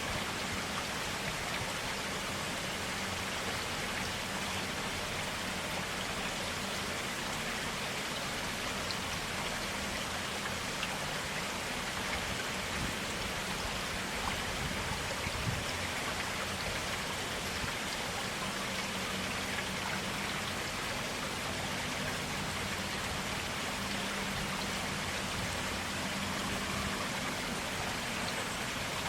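A clear stream of water flowing steadily, an even rushing and splashing with no breaks.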